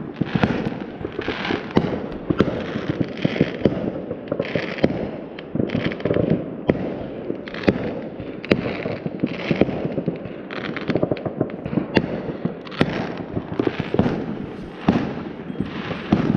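Many fireworks going off at once across a city: a dense, unbroken run of pops and bangs with crackling in between.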